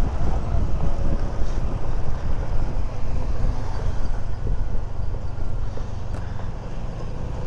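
Wind buffeting the microphone on a moving Honda Click 125 scooter, with the scooter's single-cylinder engine running steadily underneath.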